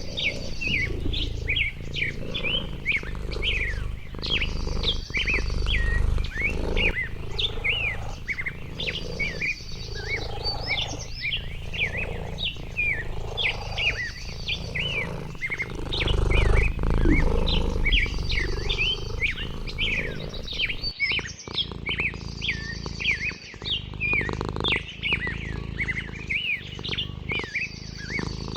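Many small birds chirping continuously in quick, short, falling notes, with a brief high trill repeating every four to five seconds. A low rumble runs underneath.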